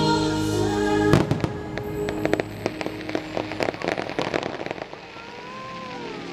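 Show music ends about a second in on a loud aerial firework burst, followed by a rapid run of sharp firework pops and bangs for about four seconds that then dies away.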